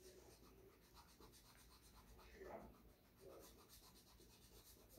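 Faint scratching of writing on paper, quiet short strokes.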